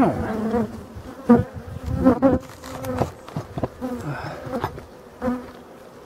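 Black honeybees (European dark bees) buzzing close past the microphone one after another, each pass a brief loud hum. The passes come thick near the start and thin out towards the end.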